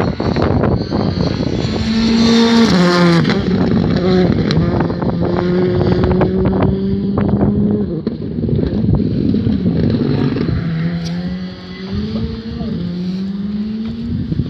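Škoda Fabia R5 rally car's 1.6-litre turbocharged four-cylinder engine running hard round the circuit: its pitch drops sharply about two to three seconds in, holds steady, then climbs again in steps through the gears near the end. Wind buffets the microphone throughout.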